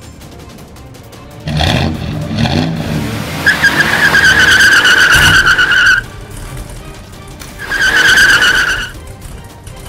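Race car sound effects: an engine revving a second and a half in, then a long tyre screech of about two and a half seconds and a shorter screech near the end, over background music.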